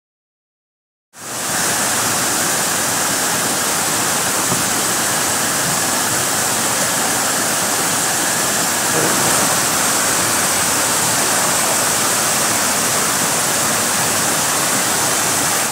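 Mountain creek rushing over boulders in white-water cascades: a loud, steady rush of water that cuts in suddenly about a second in.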